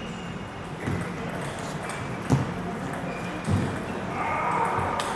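Table tennis balls knocking on bats and tables in a playing hall: a few sharp, separate knocks a second or more apart, the loudest a little over two seconds in, with faint pings from play at other tables.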